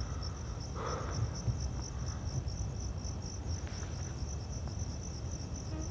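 Crickets chirping in a steady, evenly pulsed high trill, over a low rumble.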